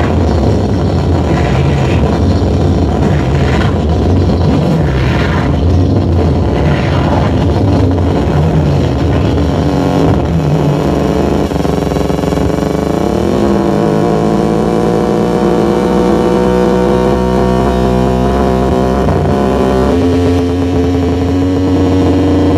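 Loud live noise music from amplified electronics and effects gear: a dense, distorted rumble that, about halfway through, gives way to steady layered droning tones, which shift about two seconds before the end.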